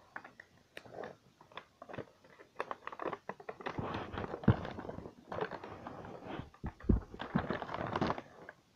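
Toy packaging being handled and opened by hand: irregular crinkling, clicks and crunches that get busier after the first few seconds, with a couple of soft thumps.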